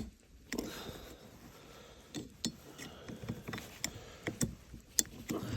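Irregular sharp metal clicks and taps of multitool pliers working at a cotter pin on a small outboard motor, trying to pull it out.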